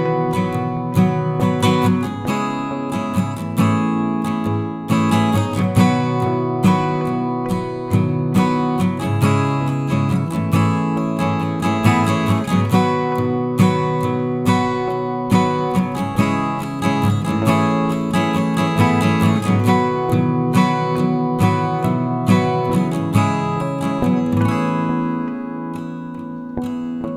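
Background music: strummed acoustic guitar with a steady rhythm, thinning out near the end.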